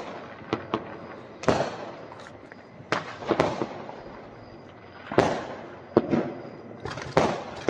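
Diwali firecrackers going off: a string of sharp bangs at uneven intervals, each trailing off in an echo.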